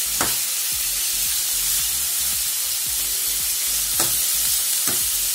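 Diced pork, onion and garlic sizzling in hot oil in a pan, the raw meat being browned. A spatula scrapes and stirs through it a few times: once near the start and twice near the end.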